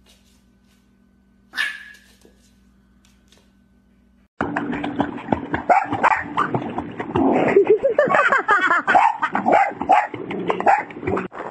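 A small dog barking amid splashing water in a swimming pool, loud and continuous after a cut about four seconds in. Before that, one brief sharp sound about a second and a half in.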